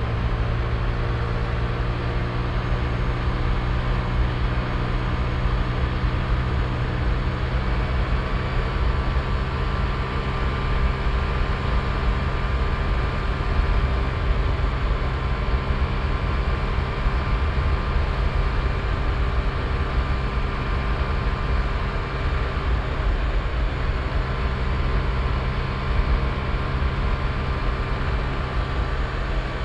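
Honda Click i scooter's single-cylinder engine running at a steady cruising speed, its pitch holding nearly level, with wind rumbling on the phone's microphone.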